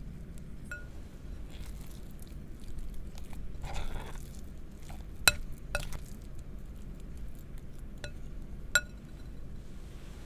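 Metal spoon stirring a thick mashed fermented-cassava (tape) filling in a glass bowl. A short scrape comes about four seconds in, and several sharp clinks of spoon on glass ring briefly, the loudest about five seconds in and near nine seconds in.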